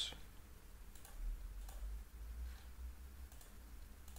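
Faint computer mouse clicks and scroll-wheel ticks, a few scattered short clicks over a steady low hum.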